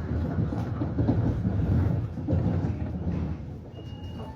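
Metro-North M3A electric commuter train running, heard from on board as a steady low rumble of the car in motion. A faint, brief high whine comes in near the end.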